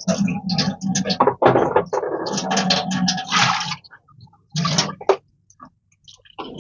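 Kitchen tap running into a bowl while peeled carrots and potatoes are washed by hand, the water sloshing. It stops about four seconds in, followed by one short splash and a few small knocks.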